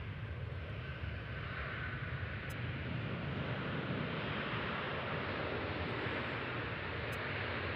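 Boeing 777-200 twin-jet taking off, its engines at takeoff power giving a steady, distant jet roar with deep rumble as it lifts off and climbs. The sound grows a little brighter after a few seconds.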